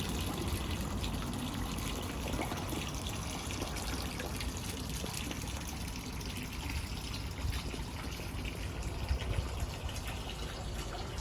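Hot-spring water pouring steadily into a bath, a continuous splashing trickle.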